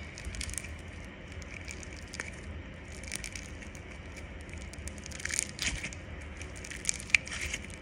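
Play-Doh Super Cloud crunchy slime squeezed and kneaded between the fingers, giving a run of small crackles and pops: its crunch. The crackling grows thicker and louder about five seconds in and again near the end.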